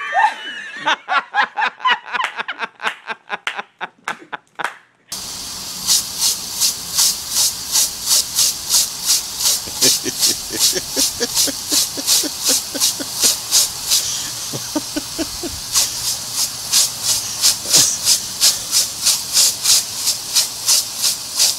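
Lawn sprinkler spraying a jet of water: a steady hiss broken by rapid, regular ticking, about two to three ticks a second. This starts suddenly about five seconds in; before it come quieter, uneven sounds from a different scene.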